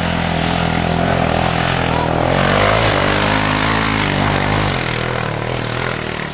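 Off-road buggy engine running close by. It revs up about two seconds in, eases off again, then fades away near the end.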